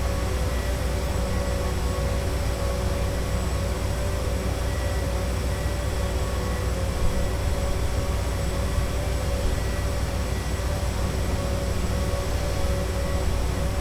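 Steady busy-city ambience: a constant low rumble of traffic with a steady machine hum carrying several fixed tones over it, unchanging throughout.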